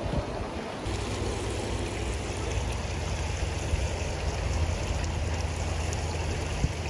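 Steady running water, with a few small splashes as hands turn a large koi over in a shallow plastic bowl of water.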